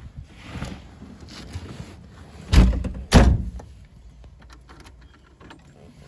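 Two loud, short thumps about half a second apart inside a car's cabin, followed by scattered light clicks as knobs on the dashboard are handled.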